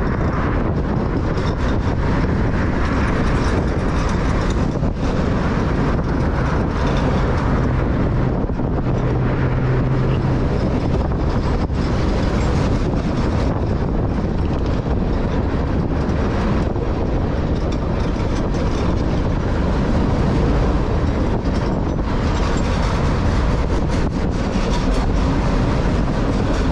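Long intermodal freight train's container-laden cars rolling steadily past on the rails, a continuous sound of steel wheels on track.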